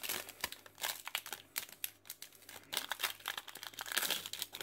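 Foil Pokémon TCG Detective Pikachu booster pack wrapper crinkling and tearing as it is pulled open by hand, in irregular crackles that get louder near the end.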